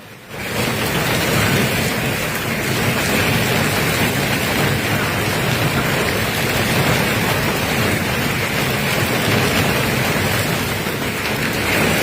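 Hail and heavy rain pelting down in a storm, a loud, dense, steady hiss that starts abruptly just after the narration stops.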